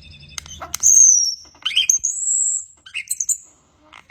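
A bird whistling and chirping: a loud falling whistle about a second in, a long high steady whistle around two seconds in, then short chirps.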